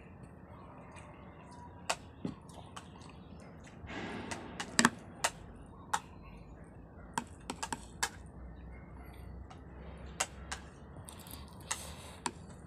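Spoon and fork clinking and scraping against a plate as rice and scrambled eggs are scooped up, in irregular sharp clicks with a couple of short scraping stretches.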